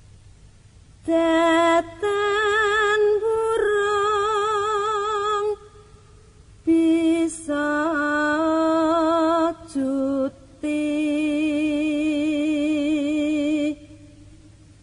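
Background music: a solo voice singing slow, drawn-out phrases of long held notes with vibrato, with short pauses between the phrases.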